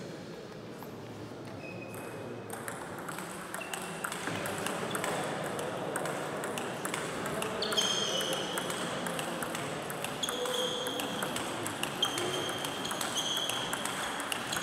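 Table tennis ball clicking off bats and the table in a rally, with quick clicks from other tables in the hall mixed in. Short high squeaks come repeatedly in the second half of the rally.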